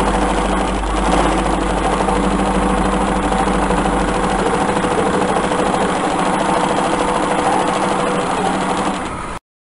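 Typical TW3-P335 cylinder-bed, compound-feed lockstitch sewing machine with a large hook, running steadily at speed while stitching. The sound cuts off suddenly near the end.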